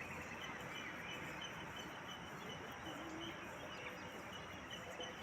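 Faint steady background hiss with a few faint, short high chirps.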